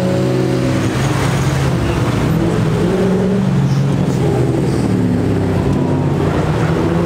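Car engines running loud and low, their pitch rising and falling as the cars are revved while driving slowly past.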